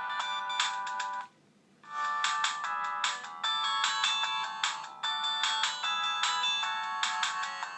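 Siemens MC60 mobile phone playing a polyphonic ringtone, a synthesized melody with several notes at once. The melody breaks off for about half a second just over a second in, then a melody starts again and runs on.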